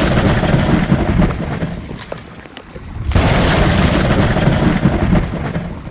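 Two loud crashes of thunder, each breaking suddenly and rumbling away over about two seconds; the second begins about three seconds in.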